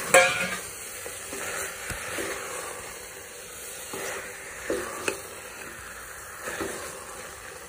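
Raw beef cubes sizzling as a spatula stirs them through hot fried onion and tomato masala in an aluminium pressure cooker. There is a loud clatter right at the start and a few sharp knocks of the spatula against the pot near the middle.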